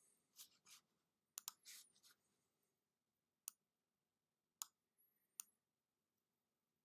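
Near silence broken by a handful of faint, sharp computer mouse clicks at irregular intervals.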